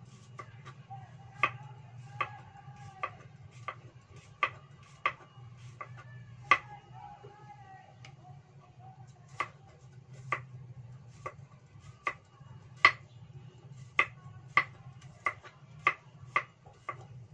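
Chinese cleaver slicing garlic cloves on a thick wooden chopping block: single sharp knocks at an uneven pace of about one a second, with a pause of a few seconds near the middle.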